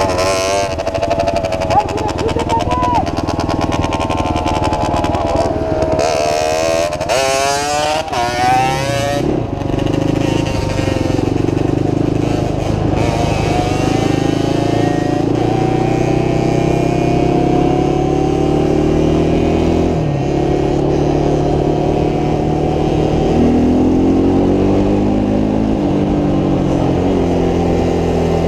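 Motorcycle engine running under way. It revs up about a quarter of the way in, then climbs in pitch in repeated steps as it accelerates through the gears.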